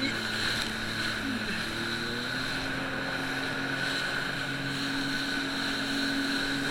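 Jet ski engine running steadily under way, a constant whine with a brief shift in pitch about a second and a half in.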